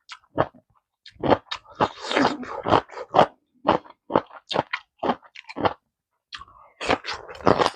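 Close-miked mukbang eating sounds of a person chewing a mouthful of pork kimchi stew: a run of short, wet chewing and smacking sounds about two to three a second, with a brief pause about six seconds in.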